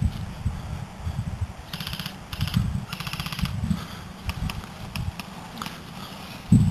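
Two short bursts of rapid airsoft gunfire, about a second apart, with a few single clicks after them. Low thumps of footsteps and camera handling run underneath.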